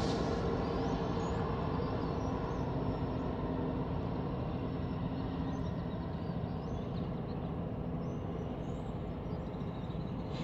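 Rear distributed-power diesel locomotives of a freight train, a GE C45ACCTE and an EMD SD70ACE, rumbling as they pull away. The rumble fades slowly, and a steady hum in it drops out about halfway through.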